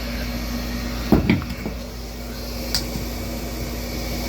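Gas furnace running with a steady hum, under test after a blower motor replacement. A quick double clunk comes about a second in and a single sharp click a couple of seconds later.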